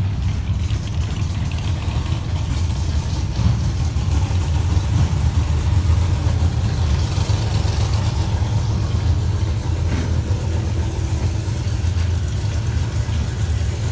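An engine running steadily at a constant low speed, with a low, even drone that does not change.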